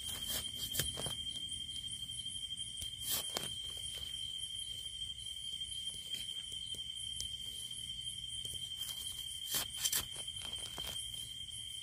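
Insects trilling steadily, one high-pitched unbroken note with a faster pulsing chirp above it. A few short crackles and knocks stand out, the loudest about three seconds in and near ten seconds, like dry leaf litter and twigs being stepped on or handled.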